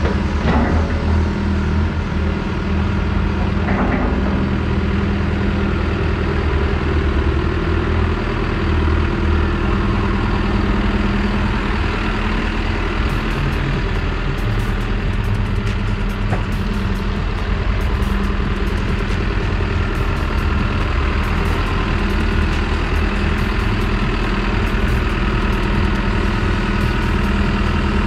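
Caterpillar 420E backhoe loader's diesel engine running steadily.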